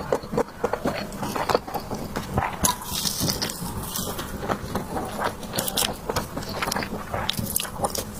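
Close-miked chewing and mouth sounds of someone eating soft desserts, with irregular small wet clicks and smacks.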